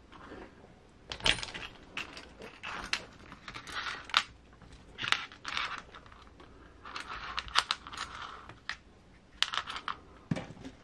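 Hands handling small metal tools and parts on a workbench and working on an RC scale truck, making irregular clicks, clinks and short rattles.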